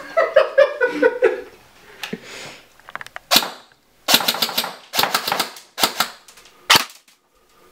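A man laughs briefly. Then a VFC Scar-L airsoft electric rifle fires several short, rapid bursts, about five, starting about three seconds in. Its gearbox is driven by a Lonex A2 motor under a Gate Titan MOSFET.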